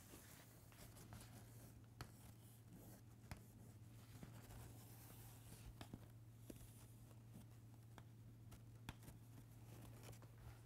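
Chalk drawing lines on a blackboard: faint scratching with a few scattered sharp taps, over a steady low hum.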